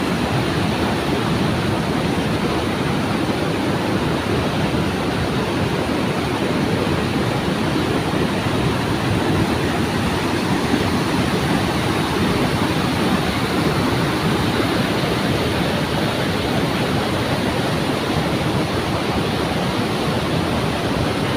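Waterfall: falling water rushing steadily, an even, unbroken noise.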